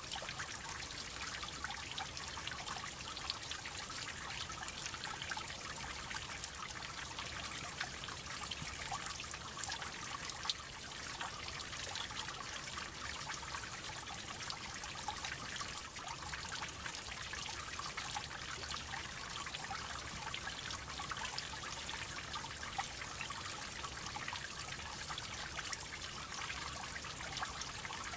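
Water droplets falling and trickling continuously, a dense patter of small drips, with one sharper drop about ten seconds in.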